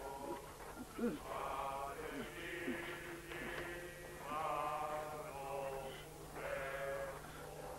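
A man's drawn-out, wavering moans of pain, several in a row, from a wounded man being tended.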